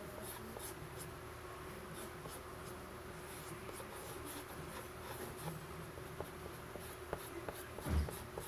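Soft pastel stick scratching across drawing paper in many quick short strokes, over a faint steady hum. A dull thump near the end.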